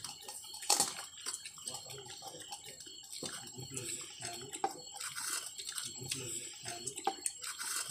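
A person eating rice and chicken curry by hand: fingers mixing rice on a plate, then chewing, with a few sharp clicks along the way.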